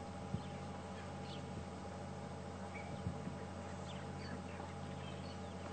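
Quiet bush ambience: faint, scattered bird chirps over a steady low hum, with two soft knocks, one just after the start and one about three seconds in.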